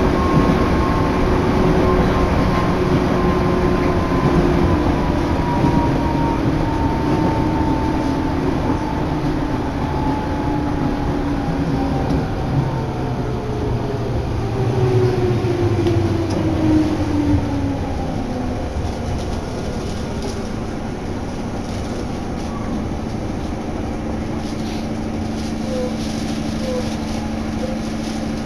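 Electric commuter train on the Sagami Line slowing to a stop. Its motor whine falls steadily in pitch over the running noise, then settles about two-thirds of the way in into a steady low hum as the train stands.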